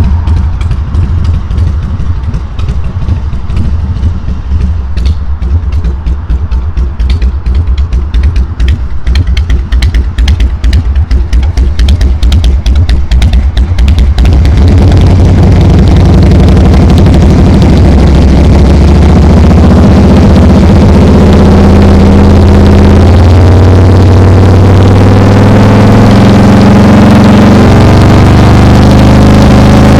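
Harley-Davidson 88-cubic-inch carbureted Twin Cam V-twin with Vance & Hines exhaust, running with a low, lumpy pulsing beat. About halfway through it gets louder and steadier, with the pitch rising and falling as the engine is revved.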